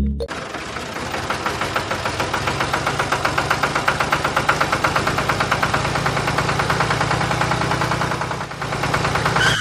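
Small electric motor of a DIY model machine running, with a fast, even rhythmic knocking. A brief higher tone bends near the end.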